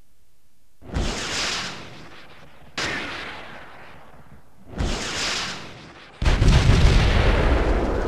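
Explosions: four heavy blasts about two seconds apart, each dying away over a second or so. The last is the loudest and runs on in a long low rumble.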